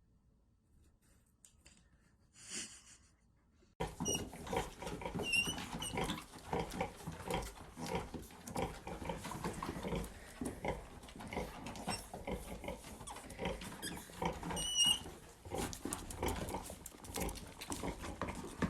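Sounds of a domestic animal: after a faint start, a dense, continuous run of irregular noises begins suddenly about four seconds in, with a couple of short high squeaks.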